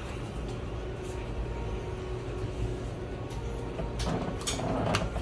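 Kitchen room tone: a steady low hum, with a few light knocks and clatters about four to five seconds in.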